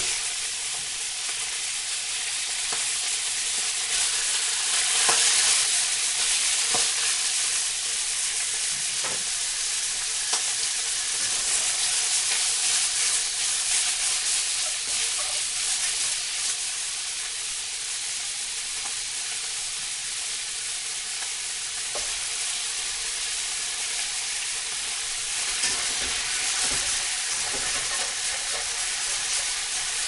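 Food stir-frying in a hot pan: a dense, steady sizzle with scattered clicks and scrapes as it is stirred.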